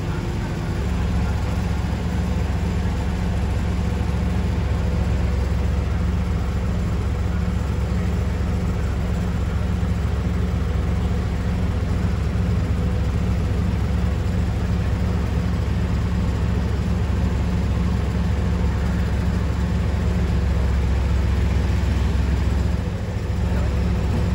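Stationary Alstom Citadis X05 light rail vehicle humming steadily as its onboard equipment runs while it stands at the platform. The hum holds a few constant low tones and dips briefly near the end.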